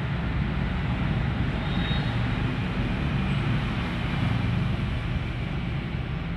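A steady low rumble with an even hiss above it and no distinct events: constant background noise.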